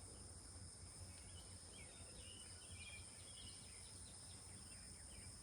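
Faint outdoor ambience: a steady high-pitched insect drone, like crickets, with a few faint bird chirps about one to three and a half seconds in, over a low rumble.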